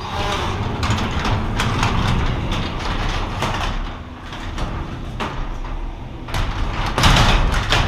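Garage door being closed: a long rolling rumble with rattles and clicks, growing louder near the end as it comes down.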